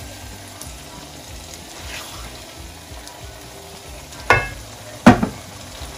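Cooked mutton mince sizzling faintly in a pan while a wooden spoon scoops and scrapes it out into a bowl. Two sharp knocks come about four and five seconds in.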